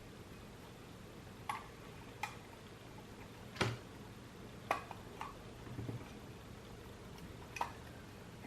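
Scattered small clicks and taps, about six over eight seconds, as a tool prises at the stiff, slightly rusted metal front plate of a Zeiss Ikon Baby Box Tengor camera, with a soft low knock near the middle.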